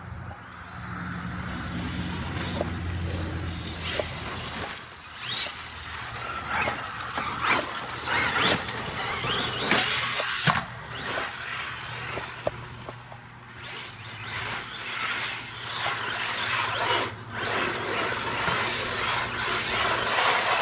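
Arma Mojave EXB RC truck's brushless motor whining up and down in repeated bursts of throttle, on a 4S LiPo pack, with its tyres sliding as it drifts.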